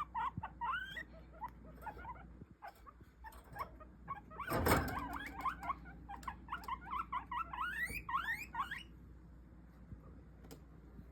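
Guinea pigs squeaking in quick runs of short rising calls, with a loud rustling thump a little under halfway through. The squeaking stops about three quarters of the way in, leaving only a few faint clicks.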